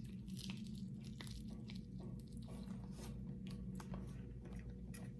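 A person chewing crispy fried chicken, with small irregular crunches throughout, over a steady low hum.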